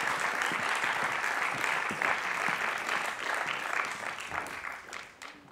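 Theatre audience applauding, the clapping fading out near the end.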